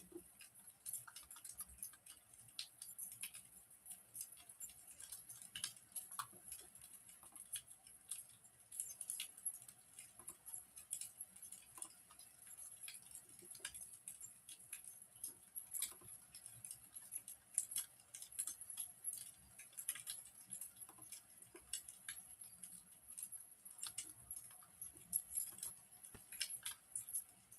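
Wood fire burning in a fireplace, crackling quietly: irregular sharp pops and snaps over a steady faint hiss.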